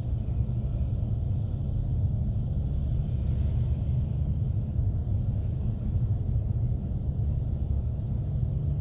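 A car driving along the road: a steady low rumble of engine and tyre noise.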